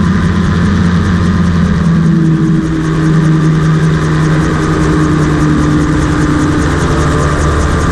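Rotax 582 two-stroke engine and pusher propeller of a homebuilt gyroplane running steadily in flight, a loud, even drone with a small change in pitch about two and a half seconds in.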